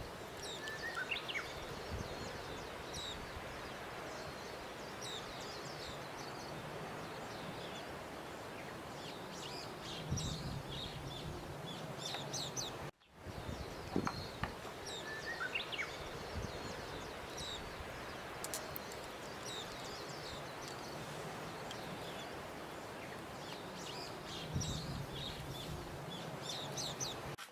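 Outdoor nature ambience of small birds chirping over a steady background hiss, on a loop: the same stretch of chirps starts over about halfway through after a brief cut-out.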